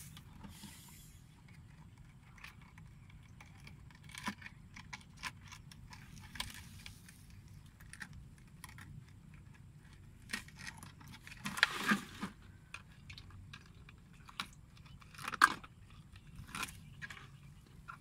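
Hands working on a homemade plastic-bottle fish trap: scattered clicks, rustles and crinkles of plastic, netting and plant stalks being handled, with louder crackling bursts about twelve seconds in and again about fifteen seconds in.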